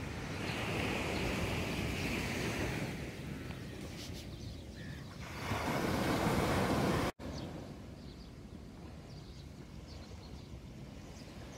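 Sea surf washing onto the beach, with wind rushing on the microphone. The rush swells twice, cuts out for an instant about seven seconds in, then goes on quieter and steady.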